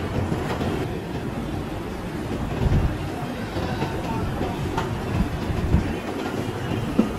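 Steady low rumble of factory background noise, with several dull knocks as heavy plaster mould sections are lifted and set against each other.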